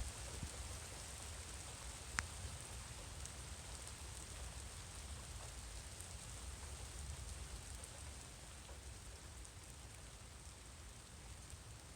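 Light rain falling in a thunderstorm, a faint, even patter with a low rumble underneath, and a single sharp tick about two seconds in.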